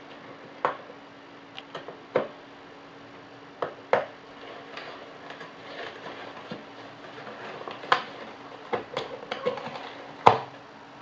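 A cardboard box knocked, scraped and torn as a cat clambers about inside it: irregular sharp knocks and rustles, loudest near the end.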